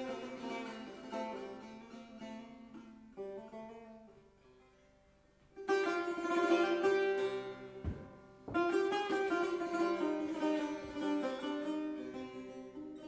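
Solo setar, the Persian long-necked lute, played with plucked notes that ring and die away almost to silence about four seconds in. Just after five seconds a louder run of quick plucked notes begins, with a short break near the eight-second mark.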